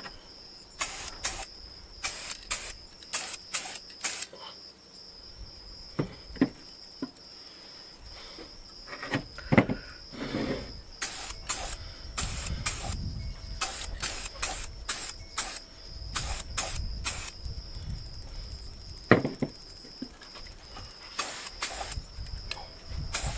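Aerosol spray-paint can spraying in many short bursts, in quick clusters, as black paint is put onto steel tube brackets. A steady high insect drone underneath, and a few knocks as the steel pieces are handled on the table.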